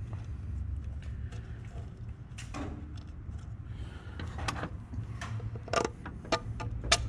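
Plastic and metal clicks and knocks from an engine computer module and its plastic mounting bracket being handled and fitted with pliers, a few sharp clicks in the second half, over a steady low rumble.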